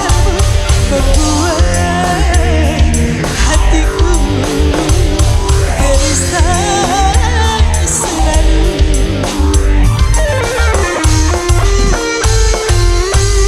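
Live band music, loud, with a steady drum beat, heavy bass and a wavering melody line on top.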